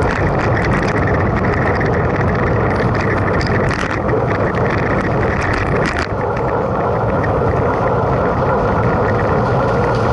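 A mountain bike ridden at race speed: a steady rush of wind on the camera microphone over tyre noise and the bike's rattle. A couple of sharper clicks come around four and six seconds in.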